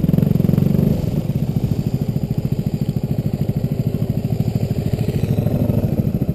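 Engine of a small off-road vehicle running with a steady, even pulse, easing off slightly about a second in.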